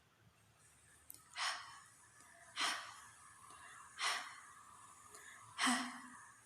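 A woman's voice pronouncing the voiceless glottal fricative /h/ on its own four times, each a short breathy puff of air about a second and a half apart.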